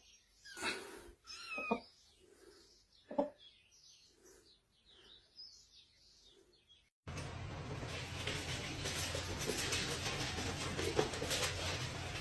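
A cat meowing several times in short calls that glide up and down. About seven seconds in the sound cuts abruptly to a steady noisy hiss.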